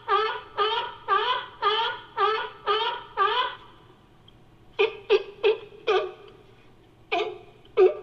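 California sea lion barking: a run of about seven hoarse, pitched barks at roughly two a second, then after a short pause four quicker, sharper barks, and a new run starting near the end. The barks are assembled from sea lion recordings as a sound effect.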